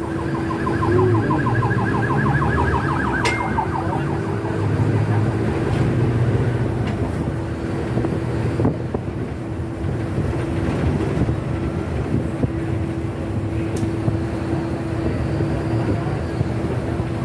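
Steady vehicle rumble with a constant hum. For the first four seconds a fast warbling, alarm-like tone sounds over it, and a few sharp clicks come later.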